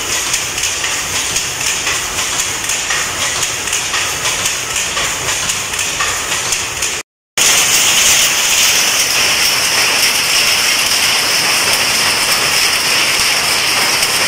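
Power looms weaving sari fabric, a loud, fast, rhythmic mechanical clatter. After a brief break about seven seconds in, the racket comes back louder and more even.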